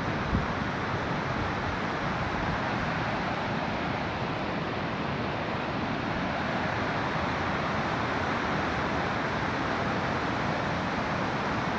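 River water rushing steadily, with one brief knock about half a second in.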